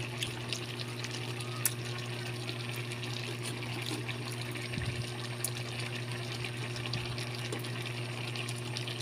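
Fresh anchovies in coconut milk boiling in a pan, a steady bubbling and crackling of the simmering liquid, with a constant low hum underneath and a couple of light clicks.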